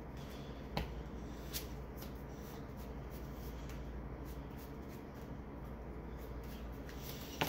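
Sleeved trading cards handled on a cloth playmat: a few light taps and slides, with a sharp tap about a second in and another at the end, over a steady low room hum.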